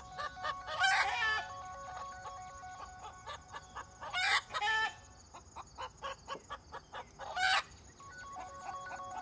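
Chickens clucking, with loud short squawking calls about a second in, twice around four seconds in, and once near seven and a half seconds, over steady high-pitched tones in the background.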